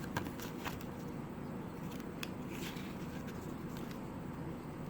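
Paperwork and packaging being handled: a few short rustles and light clicks in the first three seconds, over a steady low hum.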